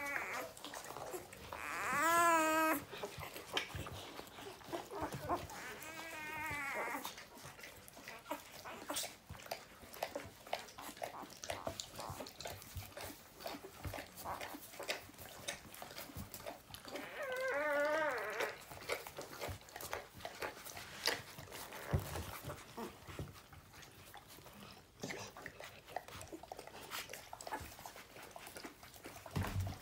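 Newborn puppies squealing and whimpering while they nurse: three short, wavering high cries, about two seconds in, around six seconds and around seventeen seconds, over a run of small wet suckling and squirming clicks.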